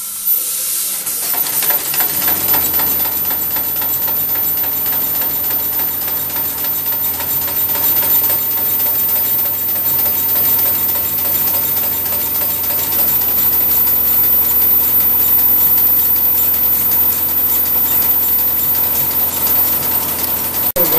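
7¼-inch gauge Corpet-Louvet 0-6-0 tank locomotive running on compressed air with its wheels spinning free on a stand, on its first trial after long disuse. A hiss starts it off, and within about two seconds it settles into a rapid, even beat of air exhausting from the cylinders that holds steady.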